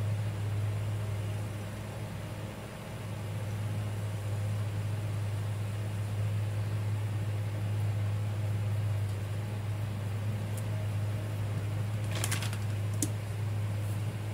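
A steady low hum from a room appliance, with a couple of light taps near the end as a paintbrush is set down on the table.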